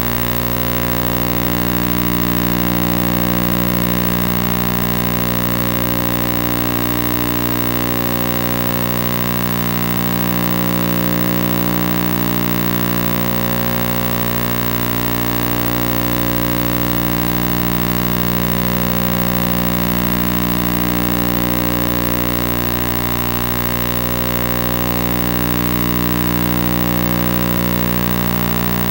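Steady electronic drone of many held tones, unchanging in pitch, swelling and easing slowly about every eight seconds.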